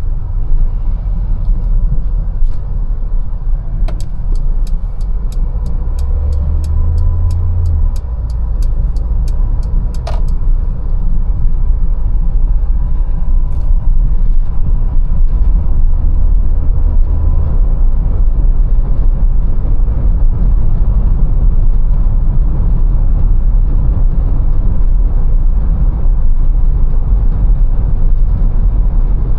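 Mercedes-Benz A180 driving, with a steady low engine and road rumble that gets a little louder in the second half. Early on there is a run of evenly spaced sharp ticks, about three a second, for some six seconds, ending with a stronger click.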